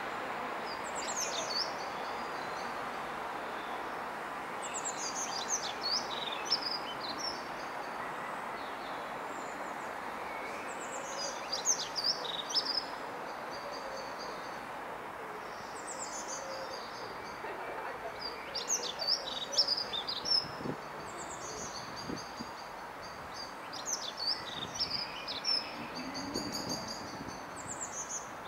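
A songbird singing short, varied, high phrases every few seconds over a steady background hum.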